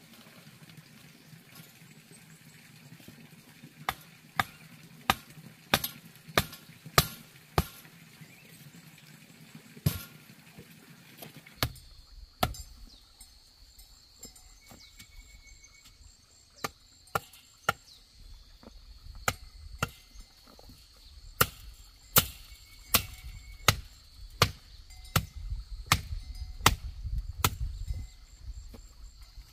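Long-handled digging tool chopping into dry, stony soil, repeated strikes about once a second and loudest near the end. Before that, in the first part, a run of sharp knocks.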